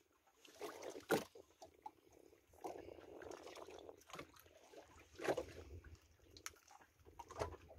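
Water lapping and splashing against the side of a small boat, with a few sharp knocks.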